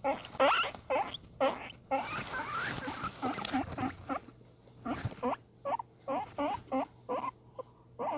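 Guinea pig wheeking: a quick series of short squeaks, each rising in pitch, about three a second, with a stretch of rustling around the middle. The calls are its excited food-begging call.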